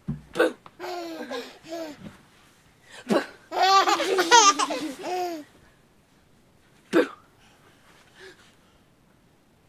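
A baby laughing hard in bursts, with the longest and loudest fit of high-pitched, shaking laughter about four seconds in and one short laugh near seven seconds, then quiet.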